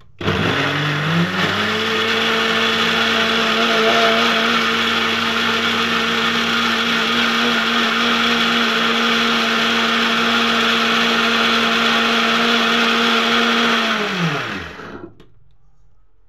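Electric mixer grinder running on a wet tomato, onion and green chilli paste, a last run to break up the remaining bits of green chilli. The motor spins up over about a second and a half to a steady whine, runs evenly, then is switched off near the end and winds down with a falling pitch.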